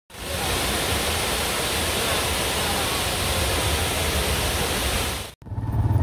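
Waterfall pouring over rocks, a steady full rush of water that cuts off suddenly about five seconds in.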